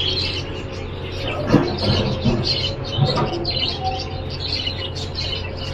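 Small birds chirping over and over, with water poured in a thin stream from a glass jug into a glass jar of jackfruit and jaggery, under a steady low hum.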